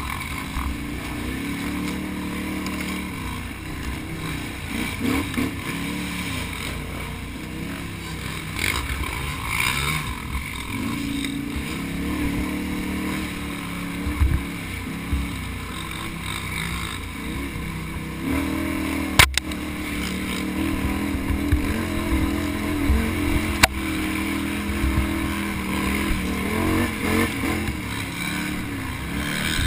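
Can-Am Outlander ATV's V-twin engine running under constantly changing throttle, its pitch rising and falling. Two sharp knocks cut through it, one a little past the middle and another a few seconds later.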